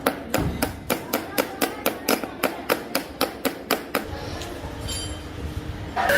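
A hammer strikes steel in a fast, even rhythm, about four or five ringing blows a second, then stops about four seconds in. Just before the end a loud metalworking machine starts up with a steady whine.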